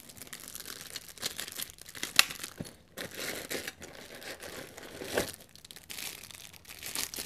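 Packaging of oscillating multi-tool attachments crinkling and rustling irregularly as they are handled, with one sharper click about two seconds in.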